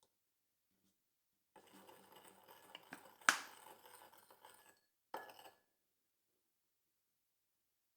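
Kitchen handling sounds: about three seconds of light rattling and scraping with one sharp click in the middle, then a short clatter about five seconds in.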